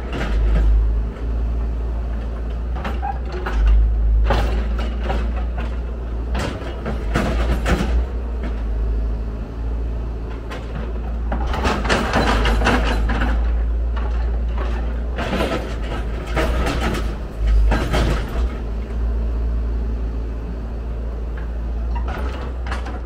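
Hyundai R170W wheel excavator's diesel engine running with a steady low rumble, with repeated bursts of clatter and scraping as the bucket digs into the soil.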